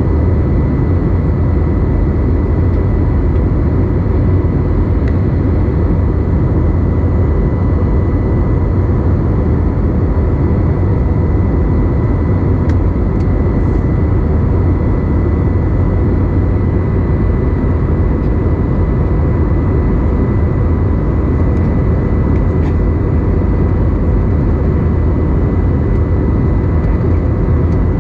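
Airbus A320neo cabin noise in flight, heard inside the cabin over the wing: a steady, even roar of the engines and airflow, with a faint steady high whine on top.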